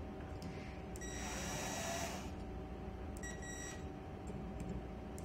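Screw gun driving a zinc-plated screw down into a bronze ground clamp: a whining run of just over a second starting about a second in, then a short second burst about three seconds in.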